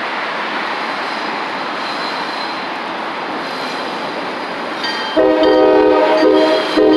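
MBTA diesel switcher locomotive's loud air horn sounding a chord of several notes: one blast of about a second and a half starting about five seconds in, then a second shorter blast near the end, over the steady rumble of the passing train and road traffic.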